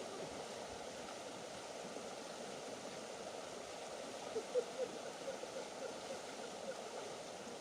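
River water flowing, a steady rushing. A few faint short notes sound just after halfway.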